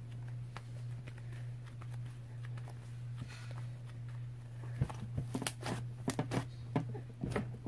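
Purple cloud slime, mixed to a butter-slime texture, being squished, stretched and pressed against a tabletop by hand, with a quick run of sharp clicks and small pops beginning a little past halfway. A steady low hum sits underneath.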